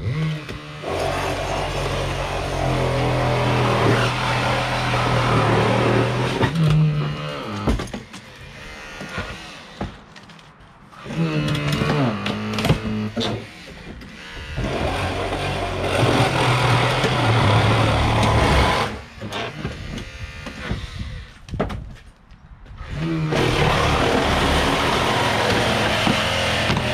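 Powered vehicle-extrication rescue tools working on a car in long bursts, with two pauses of a few seconds between them.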